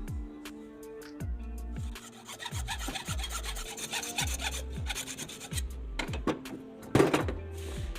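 Hand filing or sawing, a run of rasping strokes about two seconds in that lasts a few seconds, with a louder scrape near the end, over electronic background music with a thudding beat.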